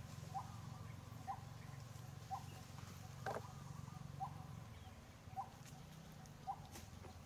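An animal's short chirping call, repeated evenly about once a second over a steady low hum, with one sharp click a little past three seconds in.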